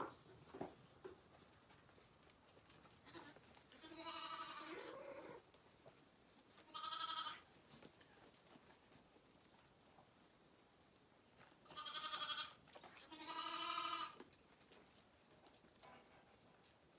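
Zwartbles lambs bleating: four wavering calls. The first is long, at just over a second, a shorter one follows, and two more come close together near the end.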